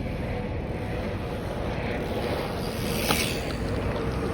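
Wind rushing over the microphone and tyres rolling on a dirt trail as a Specialized Turbo Levo electric mountain bike is ridden in turbo mode. Its motor is barely heard, only a faint steady hum.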